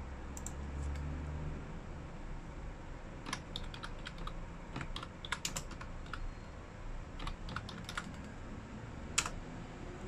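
Typing on a computer keyboard: a few scattered key clicks, then an irregular run of keystrokes from about three seconds in, and one louder click near the end.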